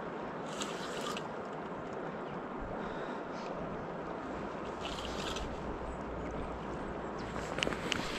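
Steady rush of river water, with a fishing reel clicking in two short bursts, about half a second in and again about five seconds in, while a hooked Chinook salmon is played from the bank. A few sharp clicks come near the end.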